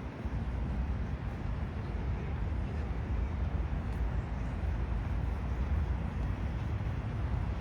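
Outdoor city ambience: a steady low rumble with an even hiss above it.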